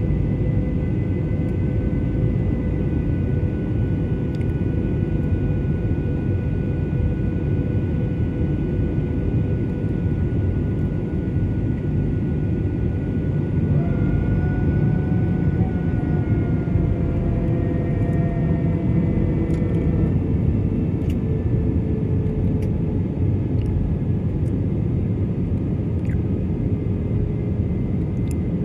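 Jet airliner engines: a steady, heavy rumble with thin whining tones over it that shift in pitch about halfway through.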